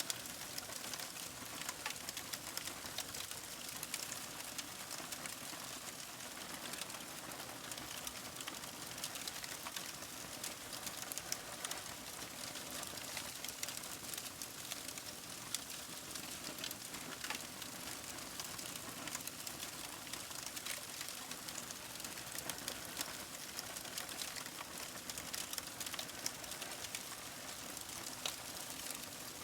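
Paper burning, crackling steadily: a dense run of small sharp pops and ticks over a soft hiss.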